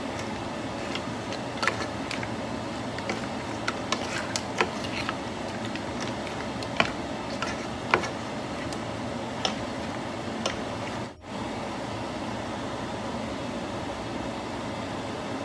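A wooden spatula stirring snow crab legs, mussels and shrimp in a pan: scattered clicks and knocks of shells and spatula against the pan, the loudest about eight seconds in, over a steady hiss that briefly drops out about eleven seconds in.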